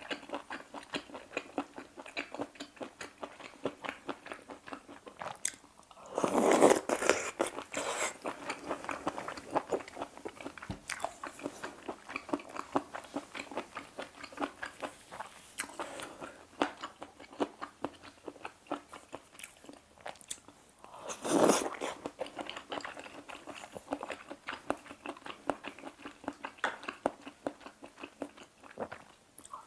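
Close-miked chewing of seafood aglio e olio pasta: a steady run of small mouth clicks, with two louder, longer eating sounds, one about six seconds in and a shorter one around twenty-one seconds.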